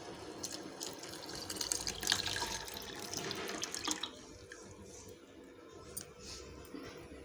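Milk being poured into a pan of boiling spiced tea water, a splashing pour that dies down about four seconds in.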